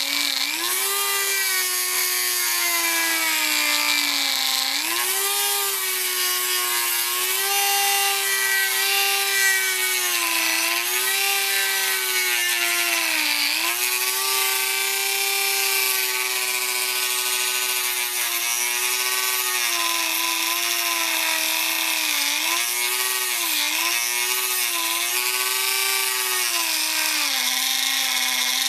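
Handheld high-speed rotary tool (Dremel) with a grinding/cutting wheel running at a high whine, its pitch sagging again and again as it bogs under load against the dipstick tube and recovering between cuts; near the end it settles to a lower pitch.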